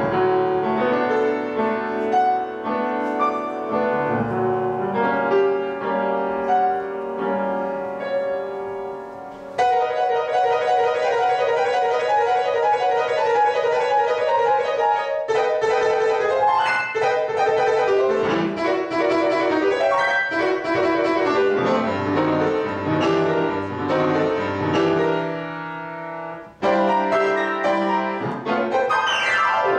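Grand piano played solo: a lively piece of runs and chords, growing louder about ten seconds in, with a brief break near the end before loud playing resumes.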